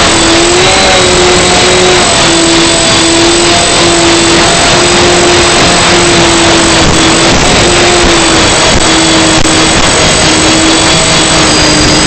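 FPV drone motors whining steadily under heavy wind and airflow noise, the pitch drifting slightly as the throttle changes.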